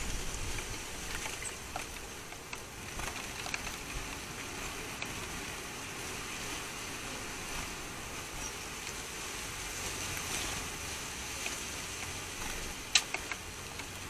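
Steady outdoor background hiss of a garden, with a few faint ticks and one sharp click near the end.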